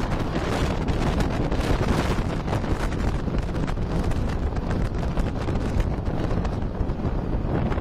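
Wind buffeting the microphone: a steady, dense rushing noise with a strong low rumble.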